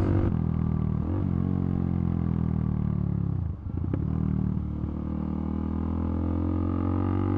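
2015 KTM RC390's single-cylinder engine running on the move. Its note slowly falls as the bike slows, dips briefly a little past halfway, then holds steady.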